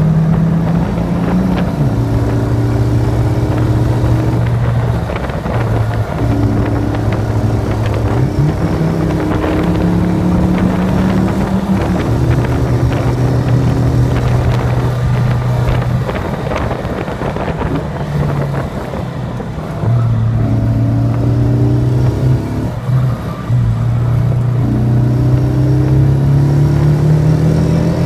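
Onboard sound of a Morgan sports car's engine under hard acceleration on a hillclimb run. The pitch rises and falls in steps with several gear changes, over wind and road noise.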